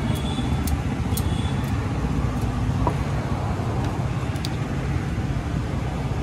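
Steady low rumble of street traffic noise, with a few faint light clicks.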